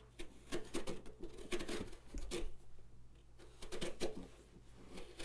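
A carving tool shaving and scraping the skin of a pumpkin in short, scratchy strokes, in several bursts with brief pauses, thinning the rind to work a little deeper into the pumpkin.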